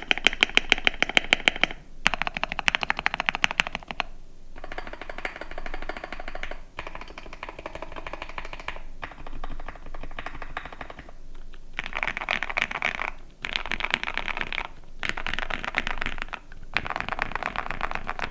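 Typing on a KBD67 Lite R3 mechanical keyboard with Gateron Black Ink V2 linear switches. It comes in runs of rapid keystrokes about two seconds long with short pauses between them, and the clicks are sharpest and loudest in the first few seconds.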